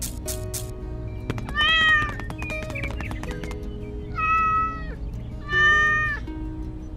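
A domestic cat meowing three times, each meow short and dipping at the end, over background music.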